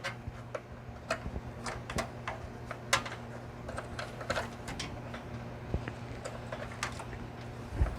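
Irregular small clicks and taps of computer parts being handled while a RAM stick is lined up with its motherboard slot, over a steady low hum.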